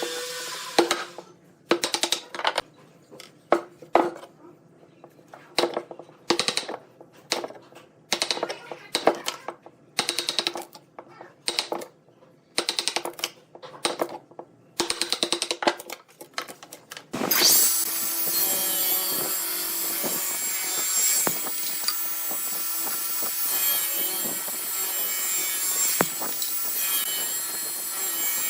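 A woodworking power machine running with a steady motor hum, its tool biting into wood in a string of short, sharp bursts. About two-thirds of the way through this gives way to a continuous loud cutting and rasping against the wood.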